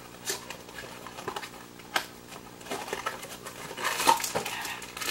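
A small cardboard blind box being handled and opened by hand: scattered rustles and light clicks, with one sharp click about two seconds in and a busier patch of handling noise around four seconds.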